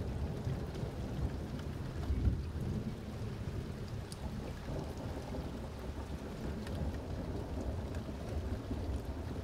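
Thunder rumbling low over steady rain, swelling about two seconds in, with scattered raindrop ticks.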